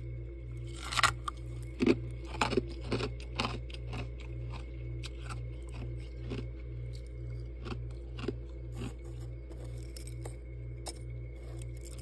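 Deep freezer with a steady low hum that throbs about two or three times a second. Over it come scattered sharp crackles and clicks of ice and frost, with a cluster of louder cracks between about one and three and a half seconds in.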